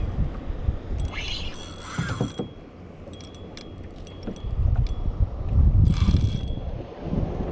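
Fishing reel being cranked to retrieve the line, its gears and ratchet clicking. Two short rushing noises come about a second and a half in and again near six seconds, and a low rumble swells in the second half.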